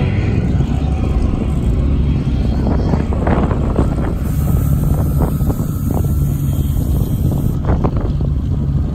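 Wind buffeting the microphone with a loud, uneven low rumble, mixed with car engines running in the race pits.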